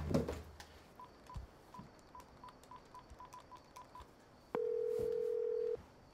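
Phone keypad beeps as a number is dialled, about a dozen short faint beeps. Then one long steady ringing tone from the earpiece, the other phone ringing while the call connects.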